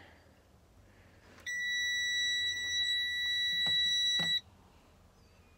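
Continuity beeper of a Klein Tools CL380 clamp meter sounding one steady high beep for about three seconds while the test leads touch the subwoofer terminal, signalling a very low resistance of about 1 ohm. A few light clicks of the probes come before and near the end of it.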